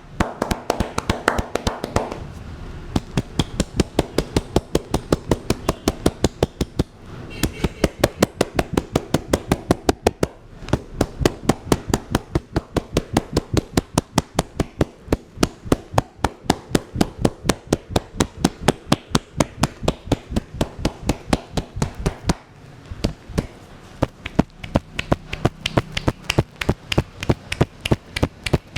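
Percussive hand strokes of an Indian head massage: hands tapping and slapping in a fast, even rhythm of about four to five strikes a second, with a few short pauses.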